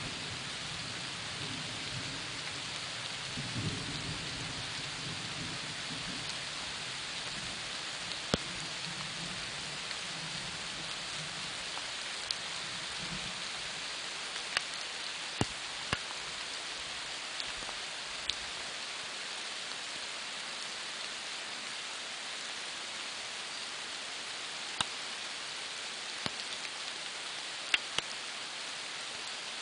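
Steady rain falling, with a low rumble of distant thunder that fades out about halfway through. Now and then a single heavy drop strikes close by with a sharp tap.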